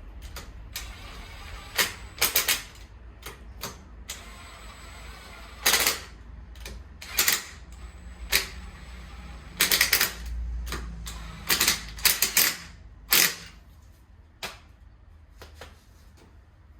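Irregular sharp metallic clacks and short rattling bursts from tools working on a car wheel, about a dozen over the stretch, the last few fainter near the end.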